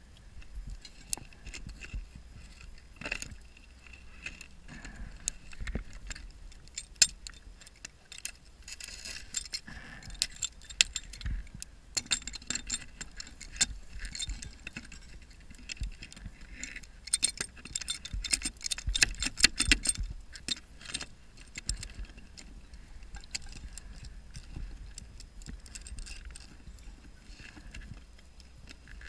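Underwater crackle of many small clicks and clinks, thickening into bursts every several seconds, typical of a scuba diver's exhaled regulator bubbles heard through the camera housing.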